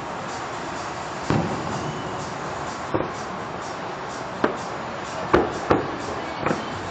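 Aerial fireworks shells bursting, about six sharp bangs at uneven intervals, the loudest a little over five seconds in, over a steady background hiss.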